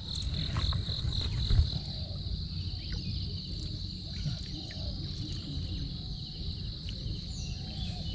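Insects chirping at a high pitch, pulsing about four or five times a second for the first two seconds and then running on as a continuous trill. Under it there is a low rumble and a thump about a second and a half in.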